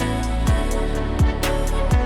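Background music: an electronic track with sustained chords, light ticking percussion and a deep kick drum that drops in pitch, striking about every 0.7 seconds.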